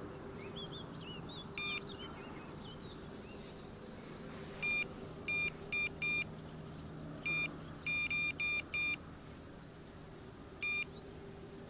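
Electronic carp bite alarm beeping in short single tones, about eleven beeps at irregular intervals, some in quick runs, as a fish pulls at the line: a bite.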